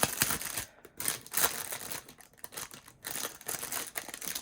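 Plastic packaging rustling and crinkling in irregular bursts as a diamond-painting kit is handled, with short pauses between.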